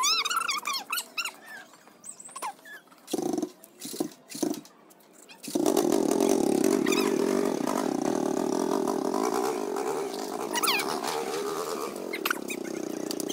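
Quad bike (ATV) engine running steadily, coming in abruptly about halfway through. Before it there are only a few faint clicks and short high squeaks.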